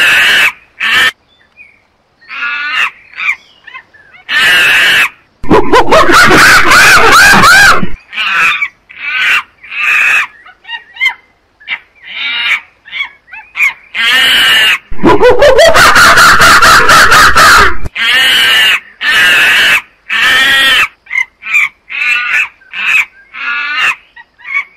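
A monkey calling loudly: a string of short cries with brief gaps between them, and two longer calls of two to three seconds, the second sliding up in pitch at its start.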